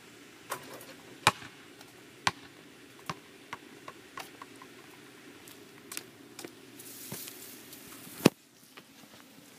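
A basketball hitting the hoop and bouncing on an asphalt driveway: a string of sharp, irregularly spaced knocks, with one loud knock about eight seconds in.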